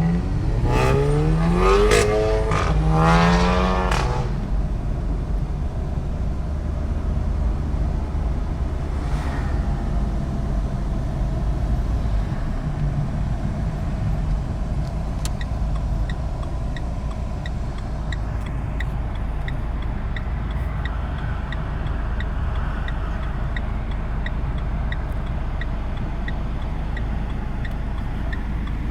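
VW Golf GTI Mk7's turbocharged 2.0-litre four-cylinder engine blipped twice, its pitch rising quickly each time, then running at a steady low hum. A couple of faint sharp cracks follow, and in the second half a regular light ticking runs alongside.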